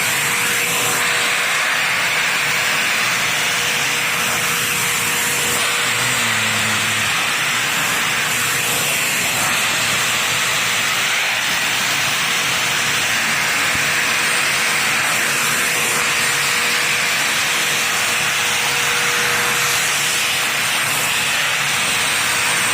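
Hart 10-gallon wet/dry shop vacuum running steadily, its motor and rushing air making a continuous loud whoosh with a faint steady whine, while it vacuums up water from the floor.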